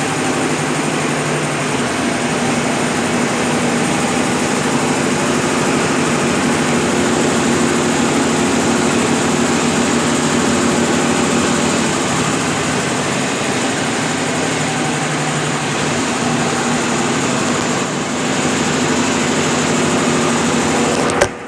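Brastemp BWL11 11 kg washing machine in its spin cycle with a load of rugs: a steady motor hum and drum whir. A click and a brief drop in level come near the end.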